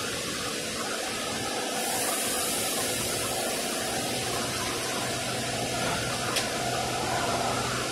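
SEPTA electric multiple-unit commuter train standing at the platform with its equipment running: a steady rushing noise, with a low hum that comes in about halfway as it gets ready to pull away, and one sharp click a little before the end.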